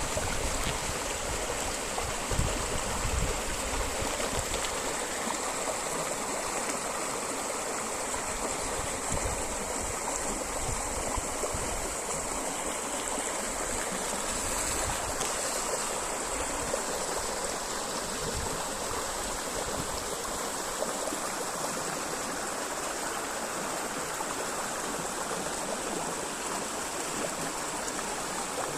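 Small river running over rocks, a steady rushing and babbling of water, with a few low thumps in the first seconds.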